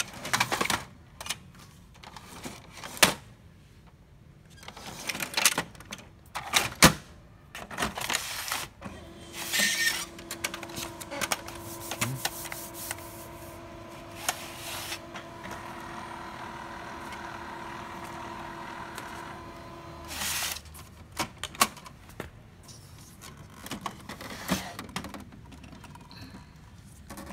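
Plastic clicks and knocks from an HP Color LaserJet M277n's paper tray and parts being handled. About nine seconds in, the printer's motors start and run with a steady hum for about eleven seconds, then stop. Scattered handling clicks follow.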